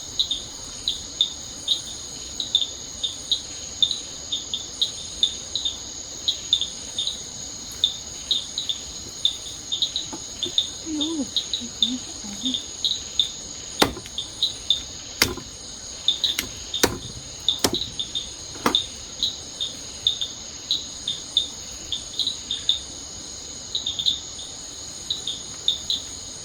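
Insects calling: a steady high-pitched whine under rhythmic short chirps, about two a second. A few sharp clicks or snaps stand out in the middle.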